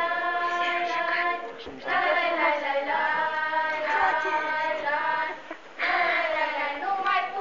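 A small group of girls singing together without instruments, in long held phrases broken by two short pauses for breath.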